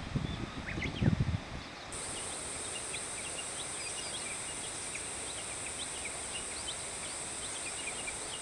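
Outdoor summer ambience: a few low thumps in the first second or so, then a steady high-pitched insect drone comes in suddenly about two seconds in and holds, with many short chirps scattered over it.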